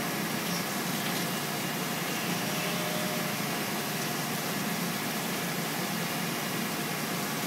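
Willemin Macodel W408B five-axis CNC mill cutting stainless steel under flood coolant: a steady hiss of coolant spray mixed with the running spindle and cutter, unbroken throughout.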